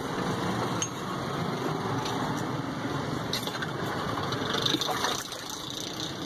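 Steady street traffic noise, with a few short knocks of a ladle against a large steel pot of watermelon juice as it is stirred and scooped.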